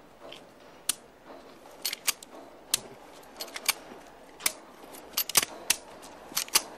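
A pistol's action clicking again and again as it fails to fire: sharp dry clicks of the trigger and of the gun being worked, a dozen or so at irregular intervals, some in quick pairs.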